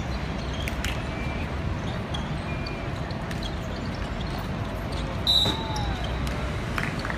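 Sounds of an outdoor basketball game: the ball bouncing on the hard court and sneakers giving short squeaks, over a steady low hum. About five seconds in, a sharp knock comes with a high steady tone that fades after about a second.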